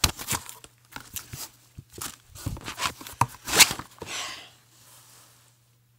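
Paper being handled, rustling and crinkling in quick irregular crackles, with the loudest crackles about three and a half seconds in, dying away after about four seconds.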